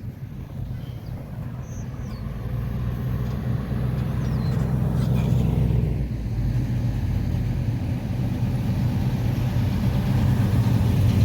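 A car engine running steadily with a low hum that slowly grows louder.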